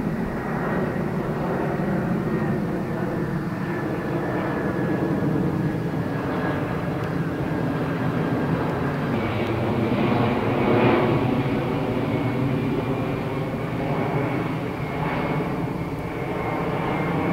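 Boeing 747-400's four jet engines passing low overhead on final approach: a continuous jet rumble with a high whine that drops slightly in pitch, loudest about ten seconds in.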